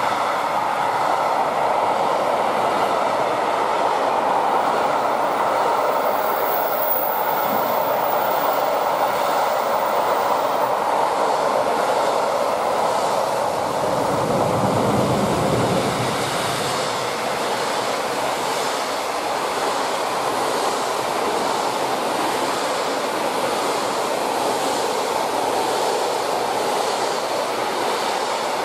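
Intermodal container flat wagons of a freight train rolling past at speed: a steady rumble of steel wheels on rail, with a regular clickety-clack of wheelsets in the later part.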